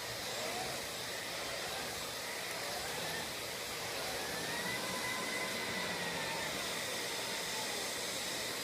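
Household vacuum cleaner running steadily, a continuous whooshing hum with a faint whine that rises and falls in pitch about halfway through.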